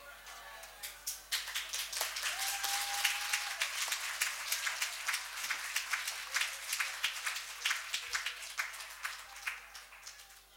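Audience applauding: dense clapping that builds about a second in and dies away near the end.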